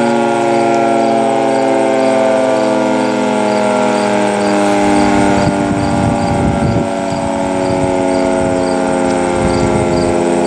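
Federal Signal 3T22 three-tone outdoor warning siren sounding its chord loudly, the pitch sliding slowly downward as it winds down. Low rumbles come and go in the second half.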